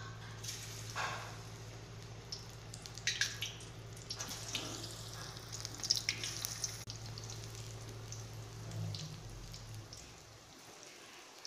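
Batter-coated baby corn pieces dropped one at a time into hot oil in a steel kadai, the oil sizzling and crackling with sharp pops as each piece goes in. A steady low hum runs underneath and stops near the end.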